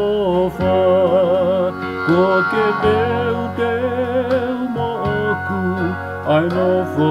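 A man singing a Tongan hymn of thanks to God, his voice wavering with vibrato, over a backing track of steady held chords.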